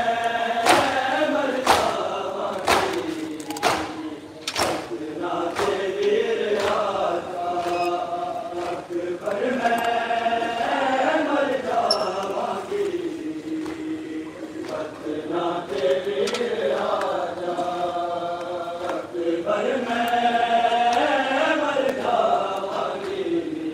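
A crowd of men chanting in unison in long, drawn-out phrases, a Shia mourning chant with chest-beating (matam). Sharp hand-on-chest slaps keep time about once a second for the first several seconds, then fade out, leaving the chant alone.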